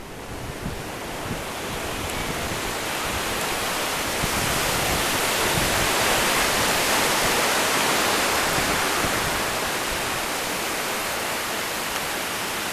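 Low surf washing up a sandy beach: a steady rush of breaking and spreading waves that swells to its loudest midway and eases off toward the end.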